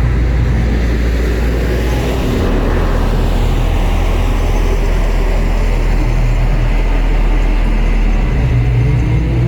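Deep, steady rumble of the Mirage volcano show's sound effects over loudspeakers, with a rushing surge of noise about two seconds in.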